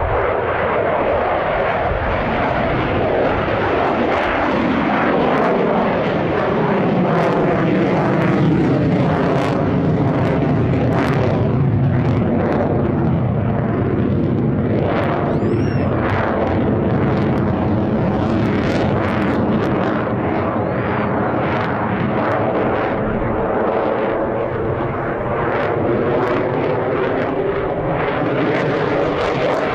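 Russian stealth fighter jet's engines running loud and continuous, a dense rushing noise with a wavering pitched drone layered through it.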